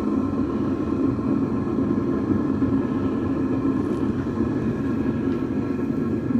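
Propane foundry burner running: a steady, low rushing noise that holds at one level throughout.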